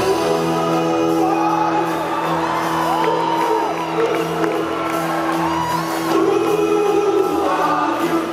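Live rock band holding a steady chord while a male singer's voice slides up and down over it.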